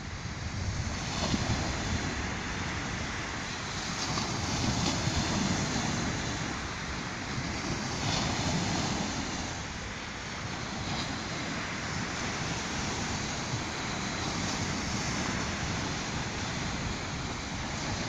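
Small sea waves breaking and washing up a sandy beach, the surf swelling and easing every few seconds, with wind rumbling on the microphone.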